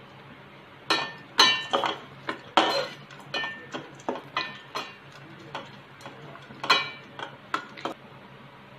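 Steel perforated ladle clinking and scraping against a stainless steel pan while a mixture of dal and spices is stirred: about a dozen sharp, ringing metal clinks at irregular intervals.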